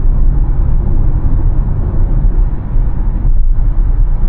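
Steady low rumble of road and tyre noise inside the cabin of a Tesla Model Y electric car while it drives, with no engine note.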